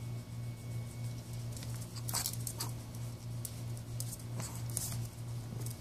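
A Pomeranian/Pekingese puppy's claws scrabbling and pattering on a bare concrete floor as it scampers, in several quick scratchy bursts from about two seconds in, over a steady low hum.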